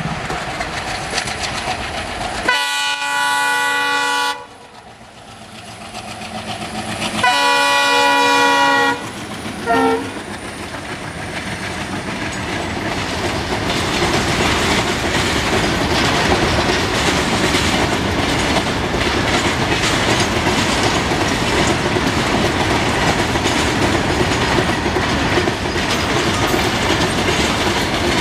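Horn of a WDM3A diesel locomotive sounding two long blasts and then a brief toot. After that, a long rake of BCNA covered freight wagons rolls past with a steady clickety-clack of wheels over the rail joints, growing louder and then holding.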